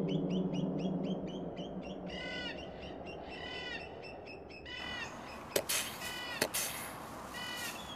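Birds calling, a quick run of repeated chirps at first and then several harsh, cawing calls. About five and a half seconds in, sharp cracks of a gun being fired, two close together and another just under a second later.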